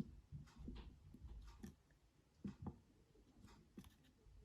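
Near silence broken by a few faint clicks and taps of plastic parts being handled and pried at while working the tabs on a Ring Doorbell Pro's housing.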